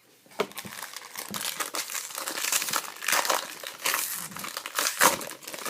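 Trading-card pack wrapper crinkling and crumpling as it is handled, with several sharper crackles along the way.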